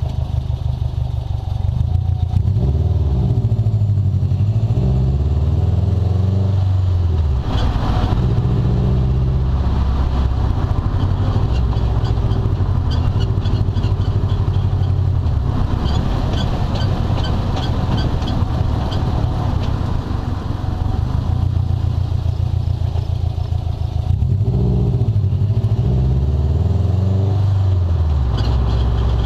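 2012 Subaru WRX's flat-four engine running through a turboback exhaust while driving in gear, its pitch rising and falling, with stretches of repeating high-pitched chirps near the middle. The chirping is a squeak that comes only in gear and stops when the clutch is pushed in, a drivetrain fault the owner is still trying to track down.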